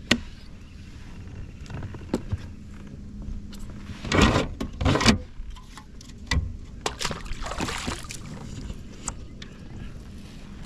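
Knocks, clicks and rustling of gear being handled in a fishing kayak as a plastic fish-measuring board is pulled out and laid down to measure a bass, with two louder noisy bursts about four and five seconds in.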